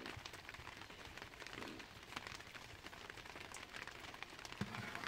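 Faint crackling of a wood fire burning under a cooking pot: many small scattered clicks over a low hiss.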